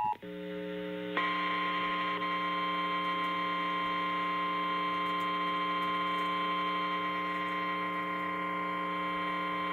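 Emergency alert tones over an FM broadcast: the EAS two-tone attention signal cuts off right at the start and a buzzing hum of several steady low tones follows. About a second in, a single steady high tone joins and holds, fitting the NOAA Weather Radio 1050 Hz warning alarm tone that heads a tornado warning.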